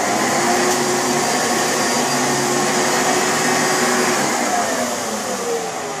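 Hoover Preferred upright vacuum cleaner running loud and steady, just switched on. About four seconds in its pitch starts falling, as when the motor winds down.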